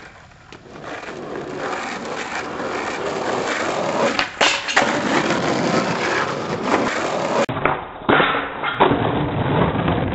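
Skateboard wheels rolling on asphalt, growing louder over the first few seconds and then holding steady, with a few sharp clacks of the board along the way.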